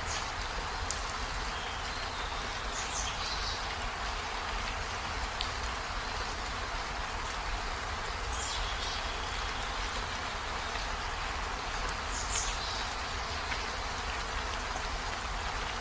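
Steady rain falling, an even hiss, with a few short high chirps heard now and then.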